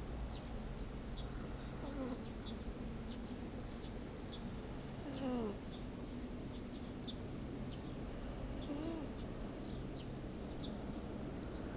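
A sleeping Shiba Inu snoring softly: a breathy snore about every three and a half seconds, some of them carrying a thin squeaky whistle that slides down in pitch. Faint high chirps tick a few times a second underneath.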